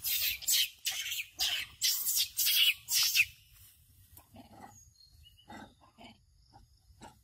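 Young macaques scuffling in leafy undergrowth: a run of loud, short noisy bursts, about two a second, for roughly three seconds. Then it goes much quieter, with a few faint small sounds.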